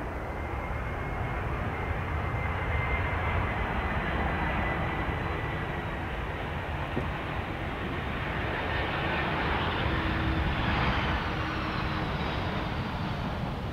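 An aircraft's engines running as it passes: a steady rumble with a high whine that slowly falls in pitch, and more falling whines later on.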